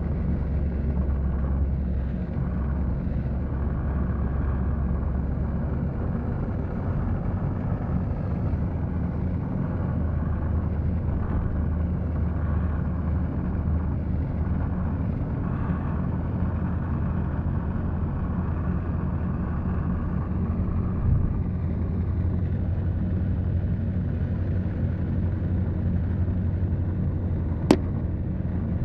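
Steady low engine and road rumble heard from inside a moving vehicle. A single sharp click comes near the end.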